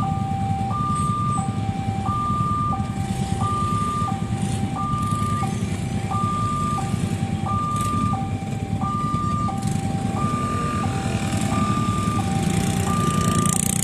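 Railway level-crossing warning siren sounding a two-tone alarm, a higher and a lower tone alternating evenly, each held about two-thirds of a second. A steady low rumble runs beneath.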